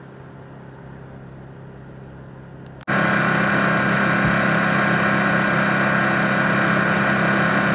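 A steady engine idle. At first it is a quieter hum; about three seconds in it turns abruptly much louder and stays steady and even.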